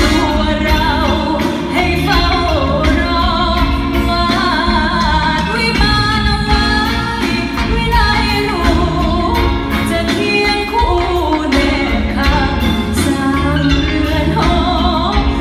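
Female singer singing a ballad live with band accompaniment over an arena PA system, heard from within the audience.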